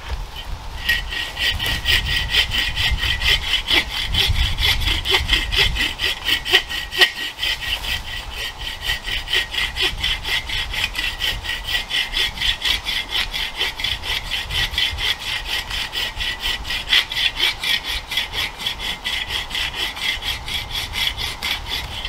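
Hand bow saw cutting through the trunk of a dead, dry standing maple to fell it: a steady back-and-forth rasp, about three strokes a second, starting about a second in.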